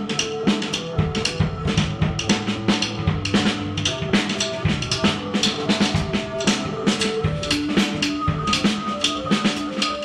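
Casio keyboard and drum kit played together: fast, busy drumming with snare and bass drum hits, over short held electronic keyboard notes that step up and down in pitch.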